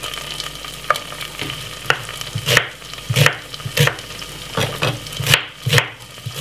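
Diced white onion frying in melted butter in a saucepan: a steady sizzle, with a sharp crackle or click about every half second to second.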